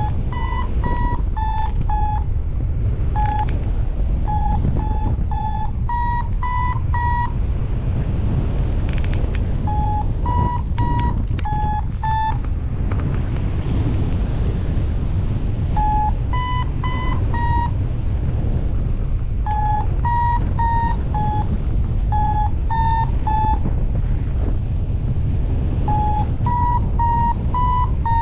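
Paragliding variometer beeping its climb tone: runs of short, quick beeps at two close pitches, the higher ones signalling stronger lift, recurring every few seconds. Strong wind rumbles on the microphone.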